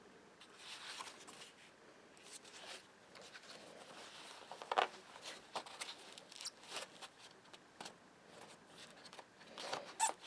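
Faint handling noises from a fabric tactical flashlight case being worked by hand: scattered clicks and rustles, with the sharpest knocks about five seconds in and near the end.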